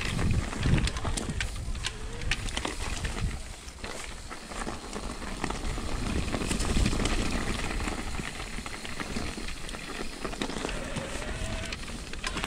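Mountain bike riding over a rough trail: tyres crackling over gravel and stones, with many short rattles and knocks from the bike over bumps, and a low rumble from wind on the microphone.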